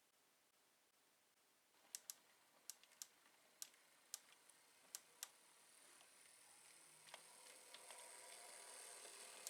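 Faint, sharp clicks, about eight over three seconds, then a high-pitched whir from a Z-gauge model railway. The whir sets in about six seconds in and slowly grows louder, fitting the small three-pole motor of a 1984 Z-gauge V60 model locomotive getting under way.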